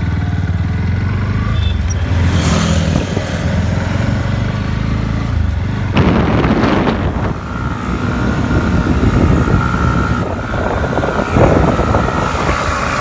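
Motorcycle engine running, first steady near idle, then riding along with the engine under way and wind noise on the microphone from about six seconds in.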